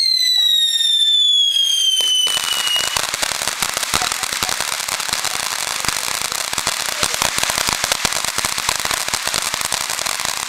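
Ground fountain firework going off: a high whistle slowly falls in pitch and fades out about three seconds in, while from about two seconds in a dense, fast crackling sets in and keeps going.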